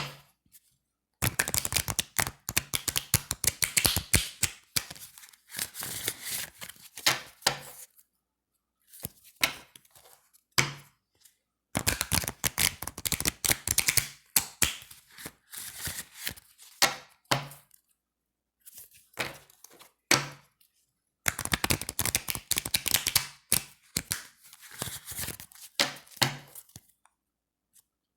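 A deck of thin, slick playing cards being shuffled over and over: three long runs of rapid fluttering clicks, shorter click runs between them, and a few soft low thuds from the deck, with short silent pauses in between.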